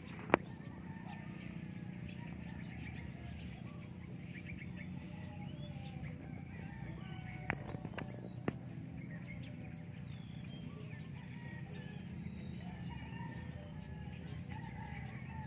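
Rural outdoor ambience: birds chirping and a rooster crowing over a steady high insect buzz. A sharp click comes just after the start, and a few smaller clicks come around the middle.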